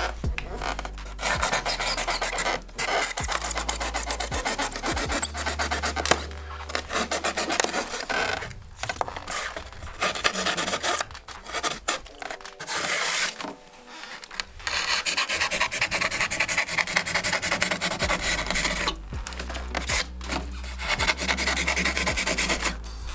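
Rigid foam insulation board being rasped and rubbed as it is worked and fitted, in stretches of rapid scratchy strokes broken by short pauses.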